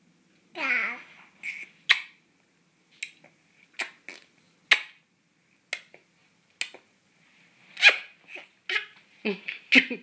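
A baby making kiss sounds: a dozen or so short, sharp lip smacks, roughly one a second. There is a brief falling vocal sound just under a second in, and a little voice mixed in with the smacks near the end.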